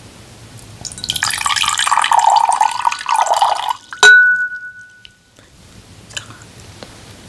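Water pouring into a glass container for about two and a half seconds, then a single sharp glass clink that rings briefly.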